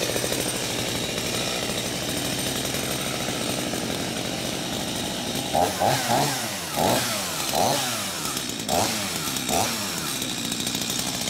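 Two-stroke chainsaw idling just after starting, left to warm up, then blipped on the throttle about six times in the second half, each rev rising and falling in pitch.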